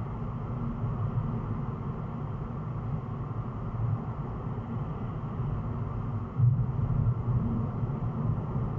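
Steady low road and engine rumble of a car cruising at about 80 km/h, heard inside the cabin through a dash cam's microphone; it grows louder a little over six seconds in.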